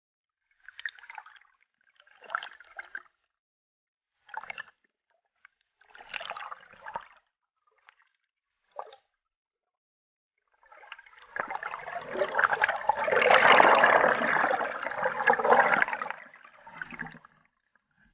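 Water gurgling and sloshing against a submerged camera: a few short bursts, then a longer, louder rush of water for several seconds near the end.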